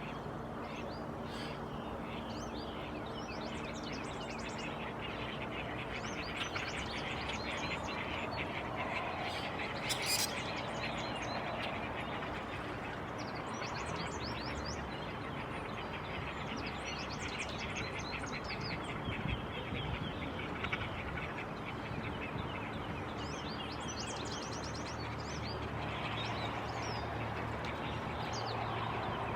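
Northern flicker giving its territorial call: long runs of rapid, evenly repeated notes, with other birds chirping higher above. A single sharp click comes about ten seconds in.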